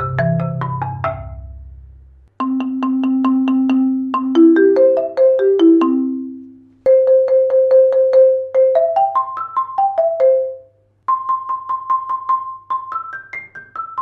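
Marimba One marimba played with Marimba One Round Sound mallets, first the hard RSB1 and then the medium RSB3, in short sound-test phrases. Each phrase is a fast roll of repeated notes stepping up and down. The phrases climb from the low register to the high register, with three abrupt joins between them.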